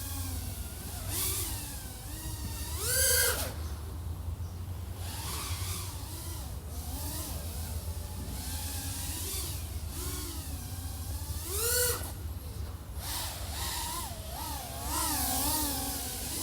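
iFlight AOS 3.5 V5 quadcopter's XING 1504 3100KV brushless motors and 3.5-inch props whining, the pitch rising and falling with throttle. Two sharp climbing whines come about 3 seconds in and near 12 seconds, and quicker wavering changes follow near the end.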